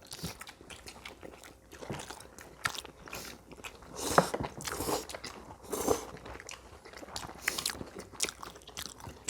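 People chewing and biting food at a meal, with some crunchy bites and small scattered clicks.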